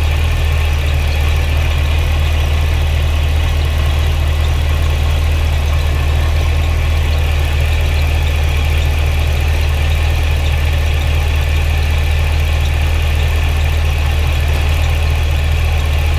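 Supercharged 6.2 L V8 of a 2009 Cadillac CTS-V idling steadily as a deep, even hum.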